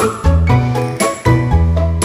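Background music: an upbeat track with a bouncy bass line on a steady beat and bright, tinkling high notes.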